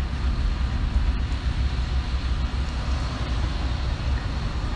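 Wind and rain in a thunderstorm: a steady low rumble with an even hiss over it, with no break.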